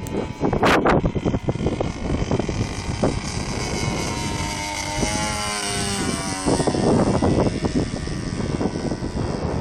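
Wind buffeting the microphone in loud gusts, with an Edge 540 RC model aerobatic plane flying. The plane's propeller drone rises and falls in pitch around the middle.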